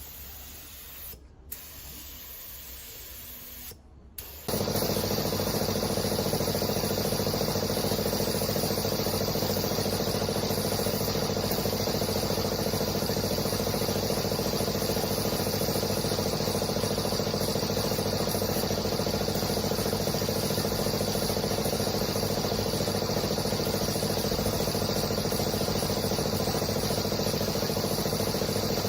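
A faint hiss, then about four seconds in a machine starts running loudly and steadily: a constant hum with a hiss over it.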